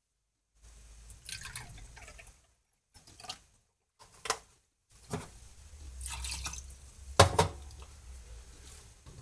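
Cranberry juice poured into a shot glass in a short splashing pour, followed by a couple of light glass knocks. Then a second, longer pour of liquid with two sharp glass clinks in quick succession partway through, the loudest sounds.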